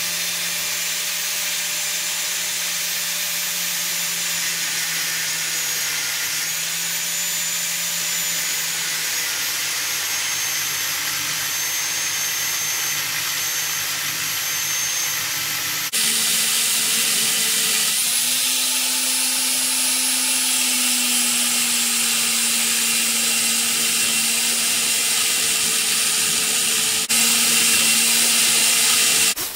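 Black & Decker angle grinder with a thin cutting disc running steadily and cutting into a metal gear blank, gashing out the teeth of a worm wheel. The whine steps up abruptly in pitch and loudness about halfway through and again near the end, where the footage is sped up.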